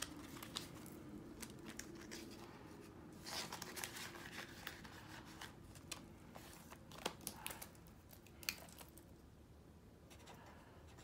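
Faint rustling and crinkling of paper banknotes and clear plastic zipper envelopes being handled in a cash binder, with a few sharp clicks about seven and eight and a half seconds in.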